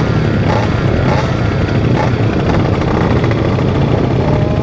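Motorcycle engine running steadily while riding, under a dense low rumble of road and wind noise.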